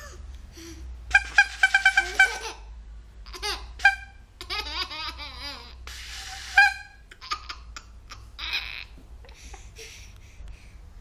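A baby laughing in repeated bursts: a quick run of giggles about a second in, further laughs through the middle with the loudest a little after, then fading near the end.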